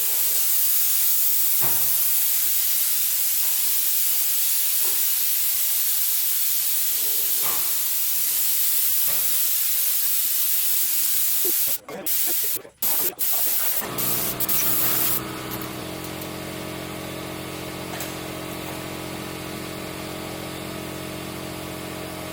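A long, loud spraying hiss for about twelve seconds, breaking into a few short spurts, then a steady mechanical hum from a running motor to the end.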